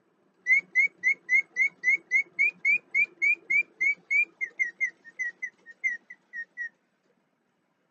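Old lever-cranked mechanical singing bird whistling a fast run of short chirps, about four a second. The chirps rise a little in pitch midway, then thin out and stop near the end.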